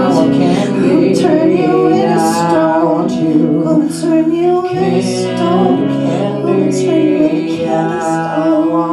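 Live rock band playing, with a woman and a man singing together over electric bass, guitar and drums, cymbals hitting on the beat.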